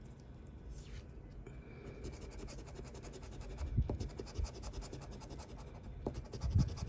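Scratch-off lottery ticket being scratched: quick, repeated scraping strokes across the card's coating, thickening about two seconds in, with a few soft knocks.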